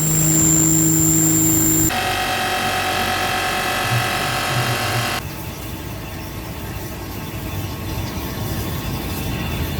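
UDM-2216 three-axis CNC machining center milling steel: steady spindle whine with cutting noise, changing abruptly in pitch and loudness about two and five seconds in.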